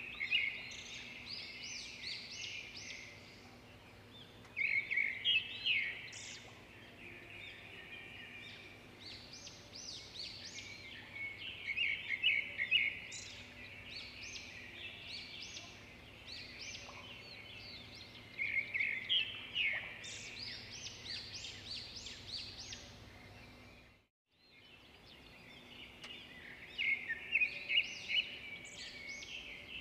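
Songbirds chirping in repeated bursts of quick, high chirps every few seconds over a faint steady hum, cutting out briefly about three-quarters of the way through.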